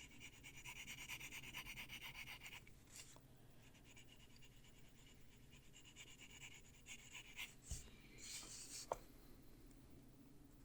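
Faint scratching of a Prismacolor colored pencil shading on paper in quick short strokes, strongest in the first few seconds, with a couple of small clicks later on.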